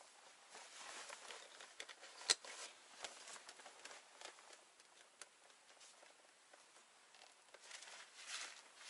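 Rustling of a backpack, straps and clothing as a pack is shouldered and adjusted, with small ticks throughout and one sharp click about two seconds in.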